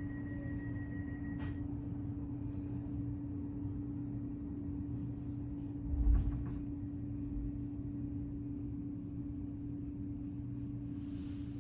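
NS ICNG electric multiple-unit train: a steady electrical hum over a low rumble. A thin high whine dies away about a second and a half in, a thump about six seconds in is the loudest sound, and a short hiss comes near the end.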